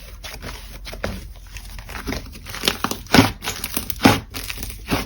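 Slime being squished and kneaded by hand, giving irregular crackles and pops, with a few louder pops in the second half.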